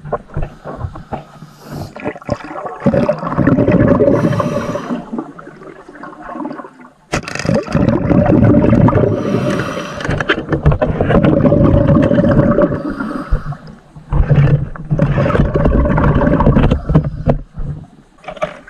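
Underwater sound from a diver's camera: muffled rumbling and churning of water, swelling loud and fading several times, with a steady hum underneath.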